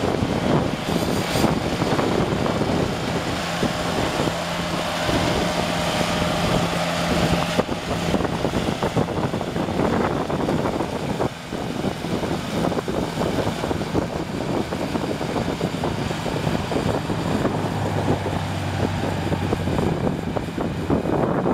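Ventrac compact tractor's engine running steadily under load as it drives a front-mounted mower deck cutting tall grass and weeds.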